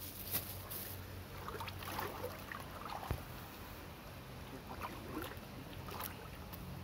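Bathers splashing and rubbing water on themselves in a shallow pool: small scattered splashes and drips with a couple of sharp splashes, over a steady low hum.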